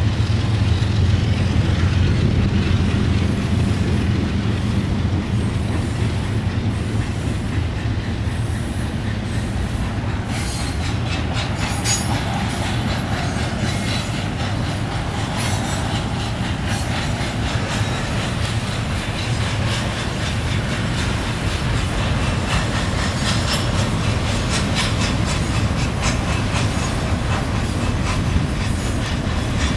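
CSX freight train passing close by: the diesel locomotives' low, steady engine hum at first, giving way about ten seconds in to rapid clicking and rattling of double-stack container car wheels over the rails.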